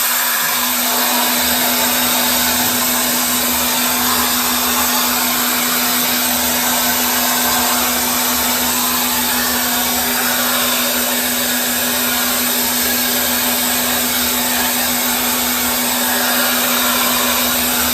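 Tessa Airstick air styler running in its hair-drying mode, blowing a steady, strong rush of air with a constant motor hum.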